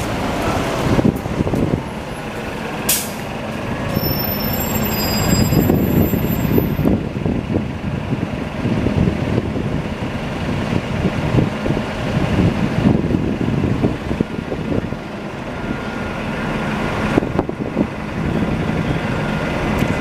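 Steady rumble of city street traffic and idling transit buses, with a short sharp air hiss about three seconds in.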